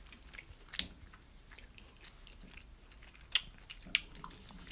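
A person biting into and chewing a frozen brown sugar bubble tea popsicle, with a few sharp mouth clicks: one about a second in and two more after about three seconds.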